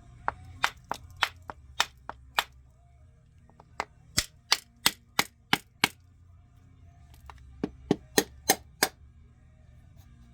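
Sharp, separate taps of a hammer on a chainsaw's oil and fuel tank housing, knocking around the seam to split the halves apart. They come in three quick runs of six to eight taps, about three a second, with short pauses between the runs.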